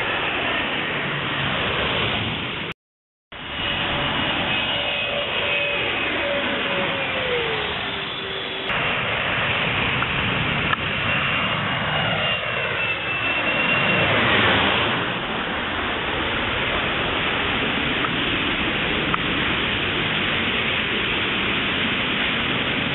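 Jet airliners, an MD-88 and an Airbus A320-family twinjet, passing low overhead on final approach in the rain. The engine whine slides down in pitch as each goes by, and the loudest pass builds to a peak about 14 seconds in, then falls away. After that there is a steady rushing hiss, and the sound cuts out briefly about three seconds in.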